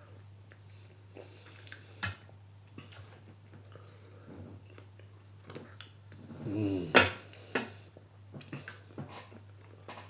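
A man chewing a mouthful of food, with scattered sharp clicks and a brief hummed "mm" about six and a half seconds in.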